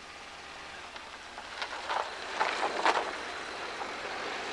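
A car passing on a road in the background: a rushing noise that swells to its loudest about two to three seconds in, with a few short sharp bursts at the peak, then eases off.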